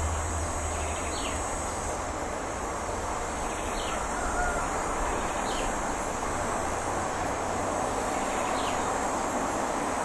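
Outdoor ambience: a steady rushing background noise with a thin, steady, high insect drone. Four faint, short, downward bird chirps sound about 1, 4, 5.5 and 9 seconds in.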